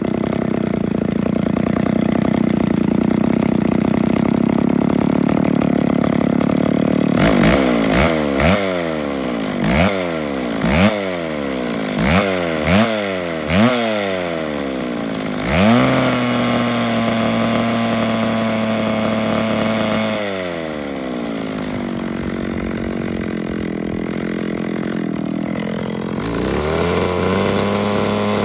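McCulloch Pro Mac 650 two-stroke chainsaw with an ungoverned carburettor, running out of the wood. About seven seconds in it is blipped through roughly eight quick revs, then held at a steady high no-load scream. It drops back for several seconds and is opened up to high revs again near the end.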